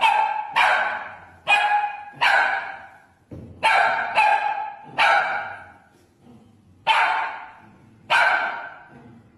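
Small curly-coated dog barking: about eight loud, sharp barks at uneven intervals, each starting suddenly and fading away.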